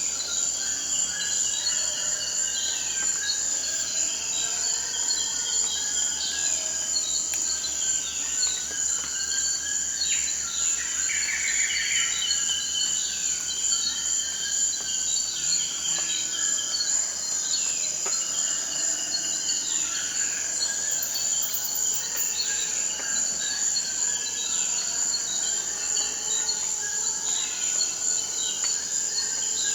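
Amazon forest ambience: a steady, high-pitched chorus of insects, with many short, falling chirps from other calling animals repeating over it.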